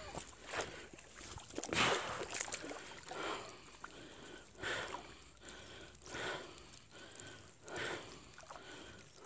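Rhythmic swishing of water, one short swish about every second and a half.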